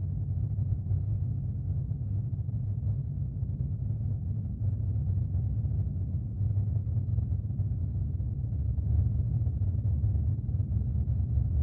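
A steady, deep rumble with no clear pitch or rhythm: a sound-effect track on a monster animation.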